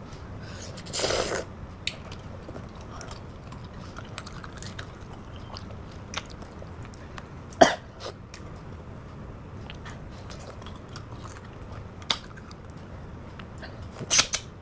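Close-up eating noises from someone eating rice and fish curry with her hands: scattered small chewing clicks and smacks, a short noisy burst about a second in, a sharp click near the middle and a quick cluster of clicks near the end.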